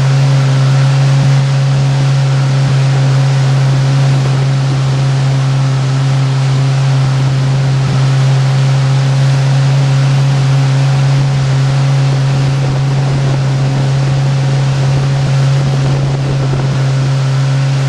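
Motorboat engine running at a steady speed with a constant low drone, over a steady rush of water and wind.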